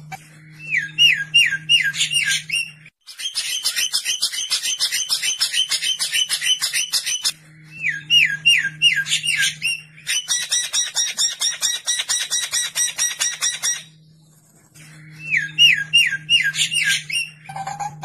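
Recorded songbird song for bird training: runs of five or six quick looping whistles alternate with stretches of rapid, harsh chattering that last several seconds, with a brief pause near the end. A faint steady low hum lies underneath.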